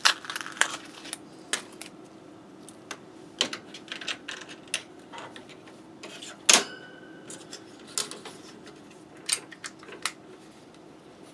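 Irregular small clicks, taps and rattles of hands sorting through small plastic parts and batteries on a workbench. One louder click about six and a half seconds in is followed by a short ringing tone. A faint steady hum runs underneath.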